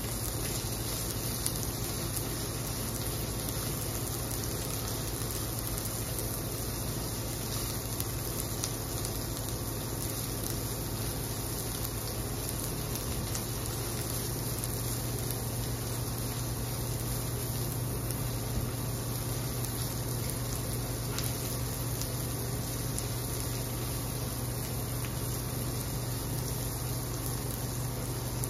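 Chopped onion and corn kernels sizzling steadily in ghee in a nonstick pan while being stirred with a silicone spatula, over a steady low hum.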